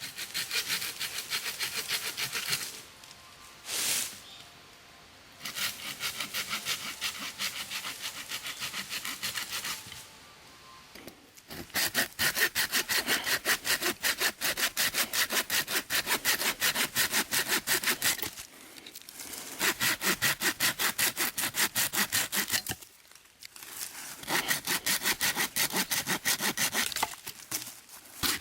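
Hand saw cutting wood, likely firewood for the campfire, in quick, even back-and-forth strokes. It goes in several runs of a few seconds each, with short pauses between them.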